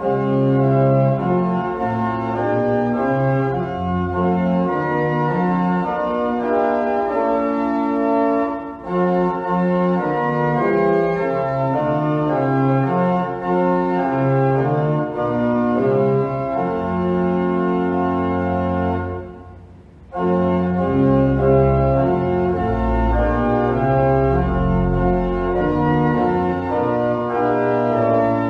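Church organ playing a hymn tune in sustained chords, with a short pause about twenty seconds in between stanzas.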